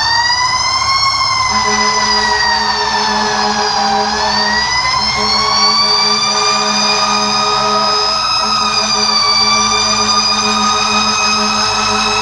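Fire engine siren wailing, its pitch rising and falling slowly, over the truck's steady engine drone.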